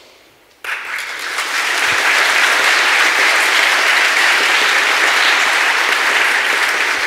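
A large audience applauding. The clapping starts suddenly about half a second in, swells over the next second, then holds steady.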